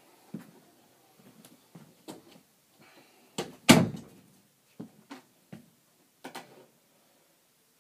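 A series of knocks and clatters, about ten in all, the loudest a heavy bang a little under four seconds in, like doors, cupboards or objects being moved and banged in a small room.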